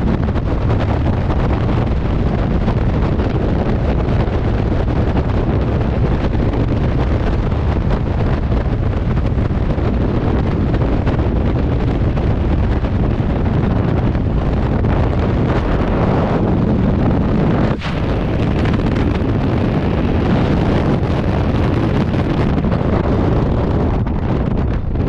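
Freefall airflow rushing over a camera microphone: a loud, steady wind roar heavy in the low end, the sound of a skydiver falling at speed.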